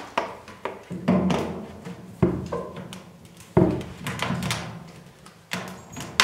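PVC drain pipe and elbow fitting knocking on a concrete floor as they are handled and laid in place: several separate thunks at irregular intervals, with rustling and handling noise between them.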